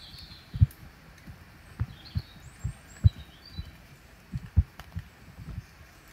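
Dull low thumps of footsteps carried through a handheld camera as its operator walks, uneven at about two a second, with small birds chirping faintly a few times in the first half.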